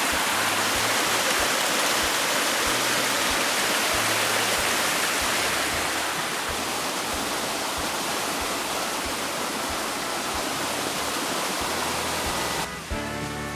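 Stream water rushing steadily over rocks, a loud even wash. Background music comes in about a second before the end.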